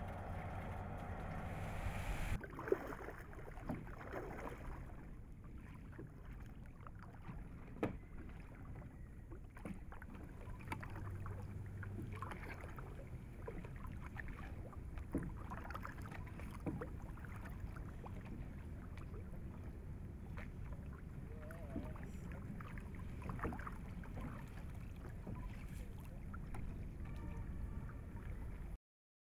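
Small wooden rowboat on a lake being rowed: water splashing and scattered knocks of oars and hull over a steady low wind rumble.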